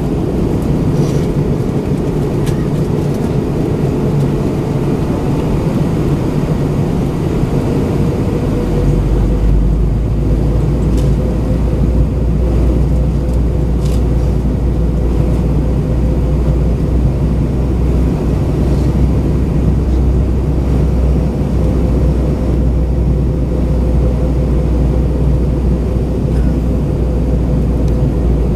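Steady cabin roar of an Airbus A320-232 in descent, engine and airflow noise heard from a window seat, with a constant hum running through it. A deep low rumble grows stronger about eight seconds in and then holds.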